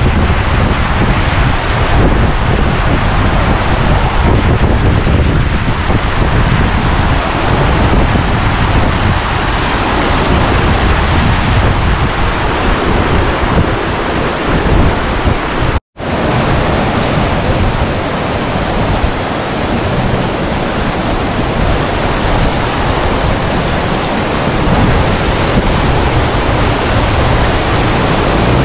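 Loud, steady rushing of a fast mountain river at a crossing point, with wind buffeting the microphone. The sound cuts out abruptly for a moment a little past halfway, then carries on as before.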